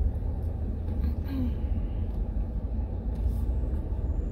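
Steady low rumble of the minivan heard from inside its cabin.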